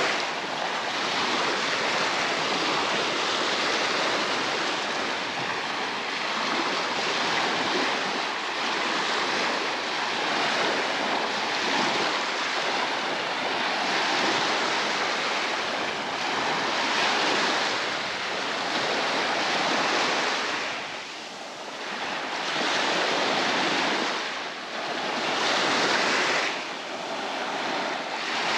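Baltic Sea surf breaking on a sandy beach: a continuous wash of waves that swells and ebbs every few seconds.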